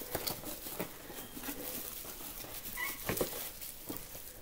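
A pet cat gives a couple of short, high squeaks about three seconds in, excited by a light reflection it is chasing, over light crinkling and clicking of bubble wrap being handled.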